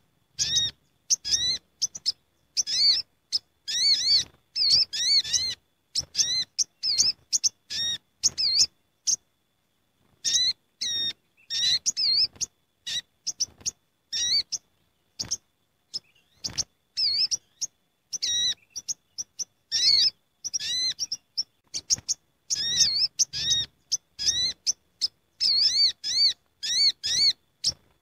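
Olive-backed sunbirds calling as a busy group: a dense run of short, high, sharp chirps, each arching up and down in pitch, with a short pause about nine seconds in.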